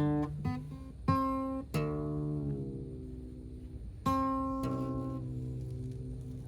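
Acoustic guitar in a non-standard tuning, its strings plucked and left to ring about six times, with notes and small chords fading out between strikes, as if the tuning is being checked.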